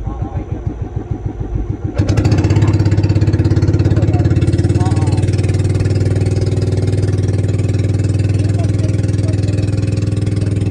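Outrigger bangka boat's engine running: a slow, pulsing chug for the first two seconds, then suddenly louder and steadier as the boat travels at speed.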